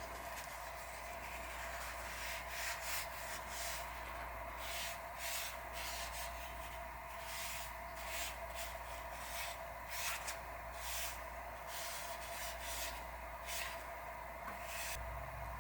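Irregular rubbing strokes of hand sanding with sandpaper, over a steady electrical hum.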